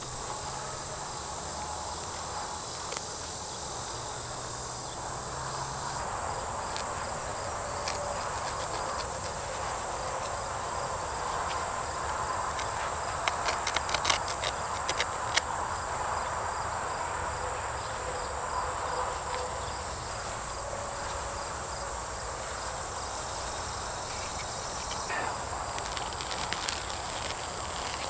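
Steady high-pitched insect chorus in the grass, with rustling and a cluster of sharp snaps and clicks about halfway through as grass and an old buried electrical cord are torn up out of the soil by hand.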